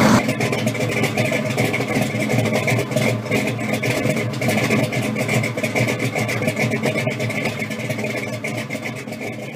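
A car engine running steadily, fading out near the end.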